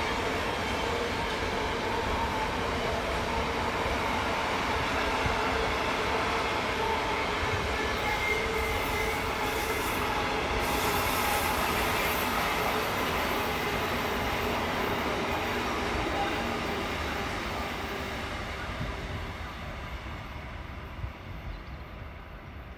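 Long intermodal container freight train rolling past on curved track: a steady rumble of wagons and wheels with thin ringing tones over it. It fades away over the last several seconds as the end of the train draws off.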